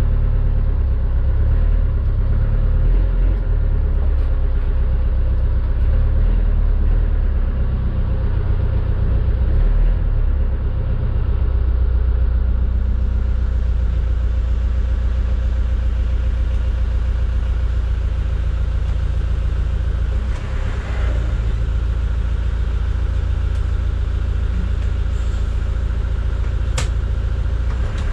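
Land Rover Discovery 1 engine running, heard from inside the cabin, uneven for the first dozen seconds as the truck is driven, then settling to a steady idle. A single sharp click near the end.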